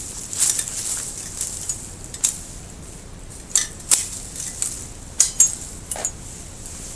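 Hand pruning shears cutting thin Japanese maple twigs: several short, sharp snips at irregular intervals, two of them close together about five seconds in, over a light rustle of leaves and branches being handled.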